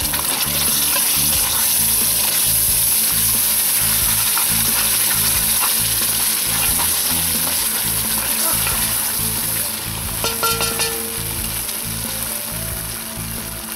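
Beef stew boiling and sizzling in an 8-quart cast-iron Dutch oven over campfire coals as a wooden spoon stirs it, a steady hiss. A few sharp knocks come about ten seconds in.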